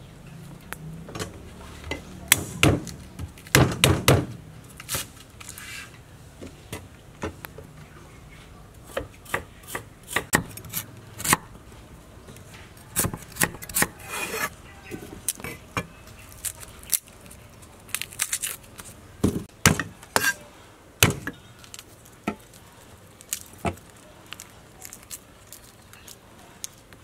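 Cleaver chopping on a wooden cutting board: sharp knocks in irregular runs and clusters as ingredients are sliced.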